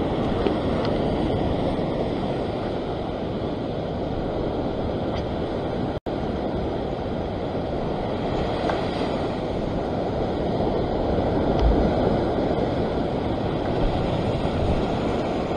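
Surf breaking and washing over a rock ledge, a steady rush of sea water, with wind buffeting the microphone. The sound cuts out for an instant about six seconds in.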